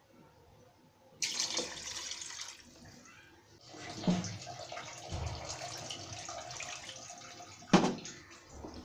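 Water being poured into a pot of browned beef curry, splashing into the hot masala in two spells. There is a knock about four seconds in and another, louder one near the end.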